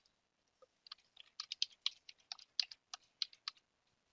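Typing on a computer keyboard: a quick run of keystrokes that starts about a second in and stops shortly before the end, entering an IP address.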